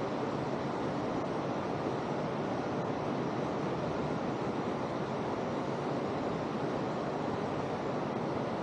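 Fast-flowing river rushing over rapids: a steady, even wash of water noise.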